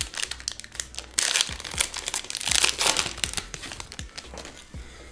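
A SportZoo Tipsport ELH hockey card pack being opened by hand, its wrapper crinkling and crackling in irregular bursts that thin out near the end.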